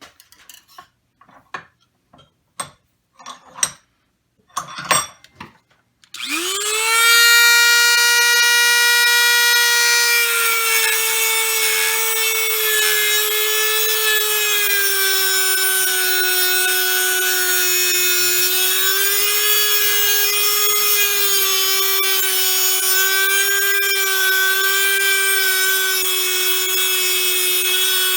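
A few handling knocks and clicks, then about six seconds in a Dremel rotary tool with a cutoff wheel spins up to a loud, steady high-pitched whine. It cuts into the part held in the vise, and its pitch dips slightly now and then as the wheel bites.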